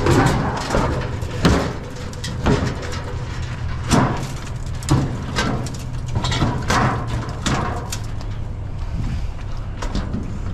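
Sheet-metal clanks and knocks as a rusty gas grill is shifted in a pickup bed and its rusted bottom tray is worked loose, about four sharp knocks in the first half and then lighter scraping and rattling. A steady low hum runs underneath.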